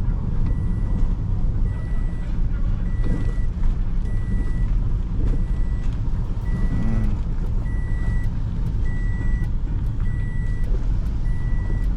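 A car's seatbelt warning chime beeping steadily, one short high beep about every second, over the low rumble of the car being driven: the belt is unbuckled.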